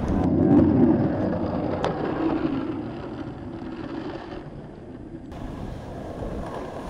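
Skateboard wheels rolling over asphalt: a steady low rumble, loudest in the first second, with a single sharp click about two seconds in. The sound changes abruptly a little after five seconds.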